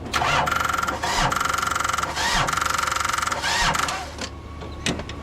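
Old tractor's electric starter motor cranking the engine on a jump start, laboring slowly with its whine sagging and recovering about once a second, for about four seconds before it stops; the engine does not catch. A sharp click follows near the end.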